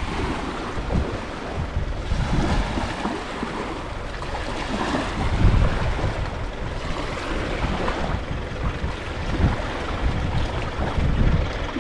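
Wind buffeting the microphone over a steady wash of water.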